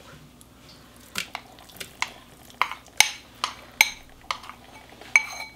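A spoon clinking and scraping against a porcelain bowl as thick barley porridge is scraped out of it, with about nine sharp, irregular clinks.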